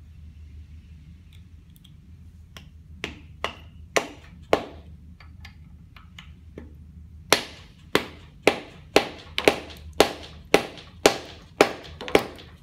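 Rubber mallet striking the metal housing of a rotary lobe pump: five knocks, a pause, then about a dozen quicker knocks, each with a short ring. The blows drive a housing segment inward toward the lobes to close up the lobe-tip clearance after wear.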